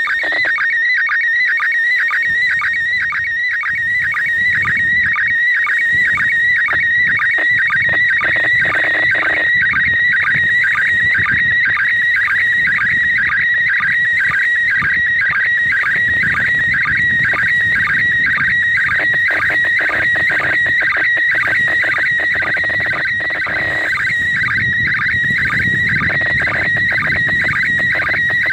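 Slow-scan TV signal from the International Space Station coming through a handheld radio's speaker: a high warbling tone broken by regular, evenly spaced ticks, the line sync pulses of an image being sent line by line.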